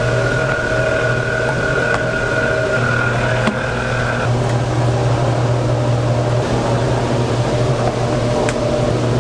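Steady mechanical hum of kitchen machinery, with a higher whine that cuts out about four seconds in and a few light clicks.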